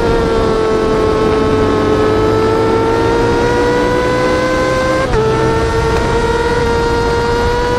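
Yamaha R6 inline-four sport bike engine running at high revs, its pitch sagging slightly and then climbing steadily. About five seconds in the pitch drops suddenly as it shifts up a gear, then climbs again.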